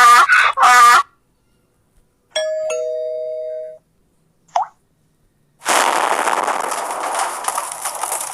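A string of separate sound effects. It opens with a short, loud, voice-like cry. About two seconds in a two-tone ding-dong doorbell chime sounds, a higher note then a lower one held for over a second. After a brief blip, from about five and a half seconds, a loud steady rushing noise sets in.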